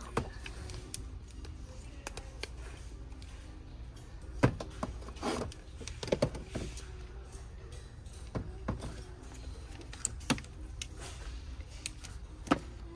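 Jars and tubs of body scrub being handled on a store shelf: scattered clicks and knocks as they are touched, shifted and one is lifted off, the loudest knock about four seconds in. Faint store music plays underneath.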